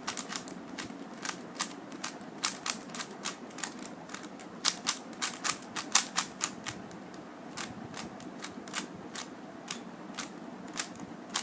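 Rubik's cube being twisted quickly, its layers clicking in irregular runs of several clicks a second as a scramble is applied.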